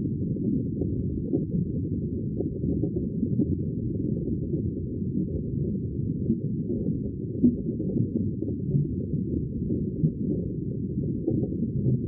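Underwater ocean ambience: a steady, muffled low wash of water noise with faint clicks here and there.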